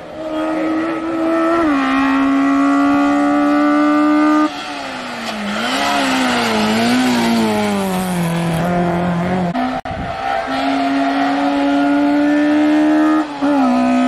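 Racing hatchbacks' engines running hard at high revs. The pitch holds steady for a few seconds, then dips and rises several times as the throttle is worked through a corner, with a hissing tyre scrub. After a sudden cut, a high steady engine note returns, with a short dip in pitch near the end as a gear changes.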